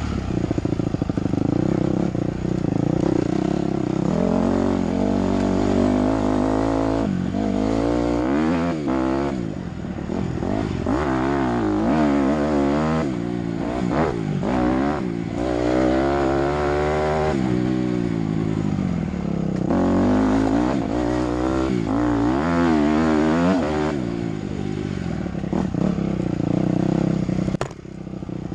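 Dirt bike engine running hard on a trail ride, its pitch rising and falling again and again as the throttle is opened and closed. The engine note drops briefly near the end.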